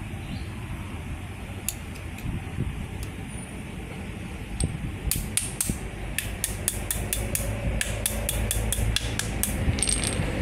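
Sharp metallic clicks and clinks, several a second from about halfway through, as a new CV drive shaft's outer joint and hub-nut end are turned and worked in the hands. A steady low workshop hum sits underneath.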